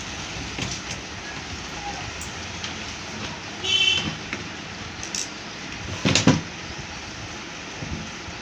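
Handling noise from work on a washing machine: scattered clicks, a short high squeak about four seconds in, and a loud knock about six seconds in, over steady background noise.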